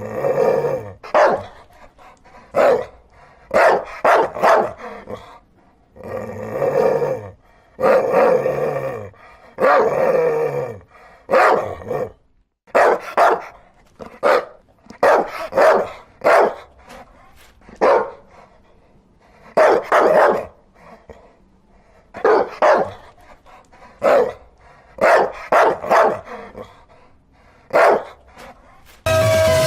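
Dog barking repeatedly, single barks and quick runs of two to four, with short pauses between.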